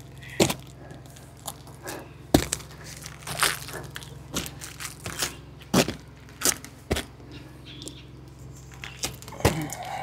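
Irregular scuffs, scrapes and knocks of a person crawling and climbing across a roof, about a dozen separate sharp contacts of shoes and hands on the roofing.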